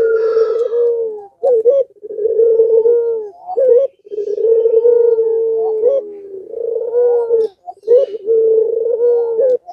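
Puter pelung collared dove in full song (gacor): a run of long, drawn-out low coos, each held one to two seconds, broken by short upturned notes and brief pauses.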